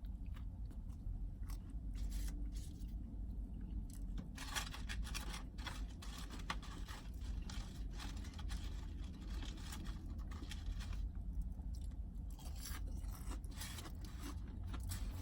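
Chewing and crunching close to the microphone as a spicy chicken burger is eaten, with many short crackles and clicks scattered throughout.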